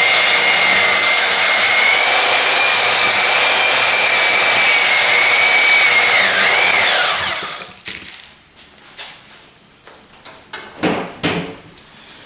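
Portable band saw cutting through a pump motor's housing, running with a steady high whine; about seven seconds in the pitch drops and the saw spins down. After that come a few light knocks of metal parts being handled.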